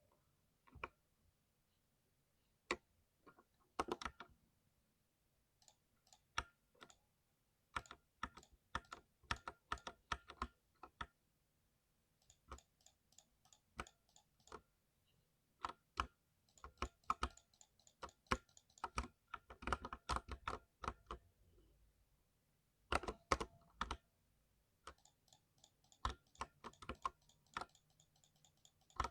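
Typing on a 60% mechanical keyboard: sharp key clacks in irregular runs of rapid strokes, with short pauses between bursts.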